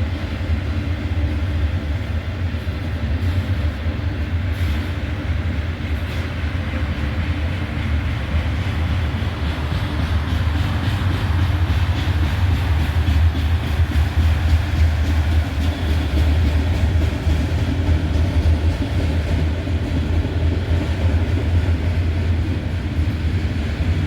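Freight cars of a long BNSF intermodal train rolling past: a steady, loud low rumble of steel wheels on the rails, a little louder from about halfway.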